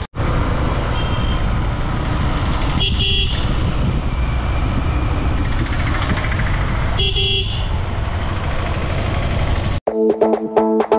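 Steady rumble of a moving road vehicle with wind noise, and a vehicle horn sounding twice, briefly, about three and seven seconds in. Music with a beat cuts in near the end.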